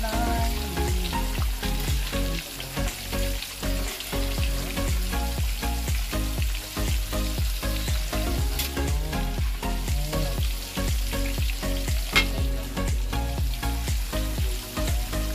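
Breaded chicken pieces deep-frying in a wok of hot oil, sizzling and crackling steadily as a spatula and tongs stir and turn them, with one sharp tap about twelve seconds in.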